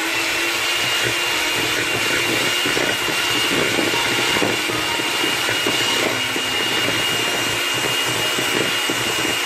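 Electric hand mixer running at a steady speed, its twin wire beaters churning solid fat in a plastic bowl, with a steady high-pitched whine from the motor over its whirr.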